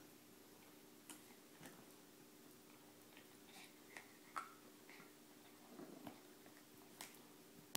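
Faint scattered clicks and scuffs as a miniature pinscher puppy chews and paws at a rubber Kong toy in a fleece bed, over a low steady hum.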